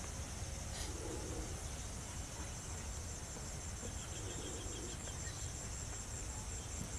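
Insects chirring in a steady, high, rapidly pulsing trill.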